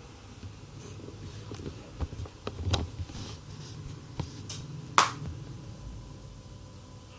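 A few short, sharp clicks and knocks, the loudest about five seconds in, over a low steady hum.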